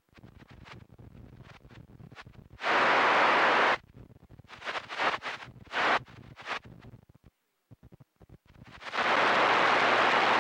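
CB radio receiver opening up on keyed carriers with no voice on them: a rush of static about a second long, then choppy, fading bursts of noise, then a longer, steady rush of static near the end.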